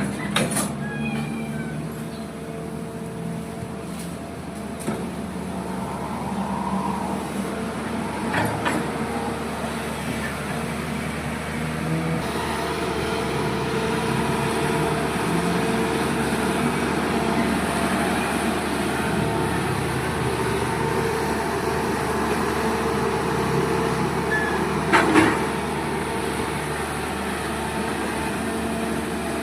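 Long-arm excavator's diesel engine running steadily as it works, its pitch shifting now and then, with three sharp knocks, the loudest near the end.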